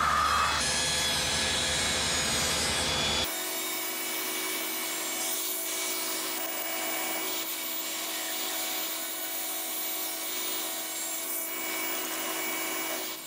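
SawStop 3HP cabinet table saw running and ripping narrow strips of poplar: a steady machine sound with fixed tones and wood-cutting noise. The sound shifts abruptly about half a second in and again about three seconds in.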